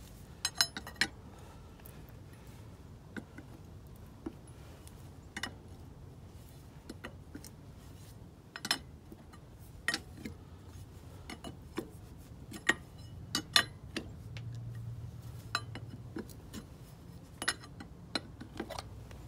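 Pry tool working the metal hub cap off a Land Rover Series 2A front wheel hub: scattered sharp metallic clicks and clinks as the tool bites and slips against the cap.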